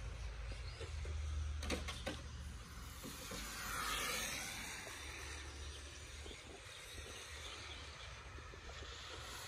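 Tamiya TT01 radio-controlled touring cars racing, their electric motors and drivetrains whining, with one car's whine dipping and rising in pitch about four seconds in. A steady low rumble runs underneath.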